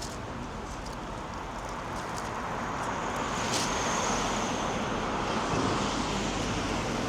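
A car driving past on the street, its tyre and engine noise swelling to a peak about halfway through and then easing off, with a thin high whine in the middle.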